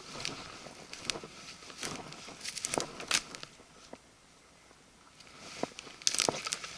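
A hiker's footsteps crunching through dry forest-floor litter, with twigs and sticks cracking underfoot. The sound pauses briefly past the middle and then picks up again with denser rustling and crunching.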